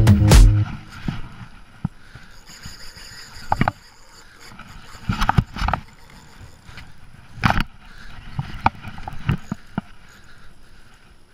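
Music ends within the first second. Then water moves against a small boat's hull, broken by irregular knocks and thumps, the loudest about halfway through.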